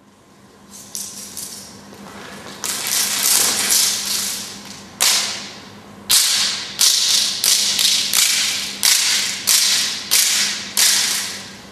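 Sharp slaps ringing out and dying away in a large, echoing hall, a few spread out at first, then about two a second.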